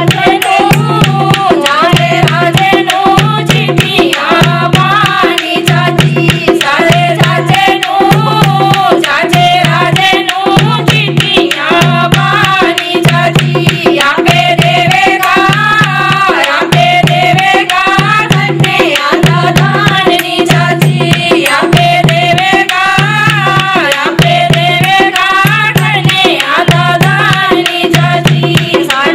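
Women singing a folk song together, a wavering melody carried over a hand drum beaten in a steady, even rhythm.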